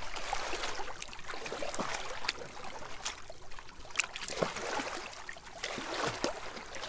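Shallow seawater sloshing and trickling, with many small scattered clicks and pops.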